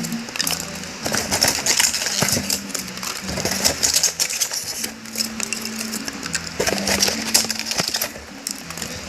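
Crinkly rustling and rapid small clicks of packaging being handled and opened, over quiet background music with low held notes.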